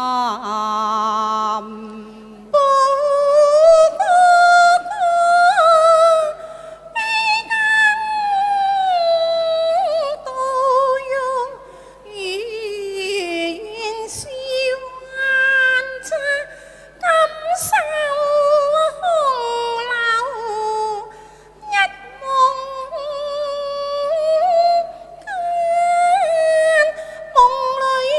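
Female voices singing Cantonese opera (yuequ) through microphones, long held notes with wide vibrato and sliding pitch, broken by a few short pauses between phrases.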